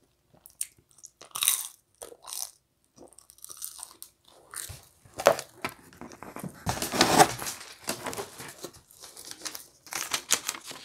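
Close-miked chewing and biting of pizza, followed by rustling and handling noises against a cardboard pizza box. The loudest is a dense rustle about seven seconds in, then quick crinkles of a paper receipt being handled near the end.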